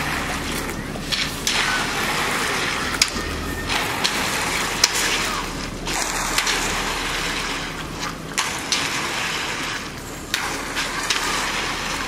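Long-handled concrete rakes and hoes scraping and dragging through wet concrete, with a wet sloshing sound and sharp scrapes and knocks at irregular intervals. A low steady hum runs underneath.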